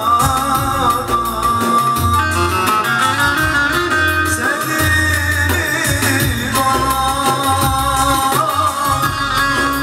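A man singing a Turkish folk-style song live, with a plucked short-necked lute and an electronic keyboard playing melody and a steady bass line.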